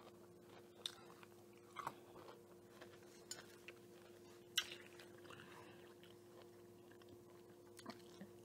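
Faint chewing and biting into a fried chicken sandwich, with a few soft crunches and mouth clicks; the sharpest crunch comes a little over four and a half seconds in. A faint steady hum runs underneath.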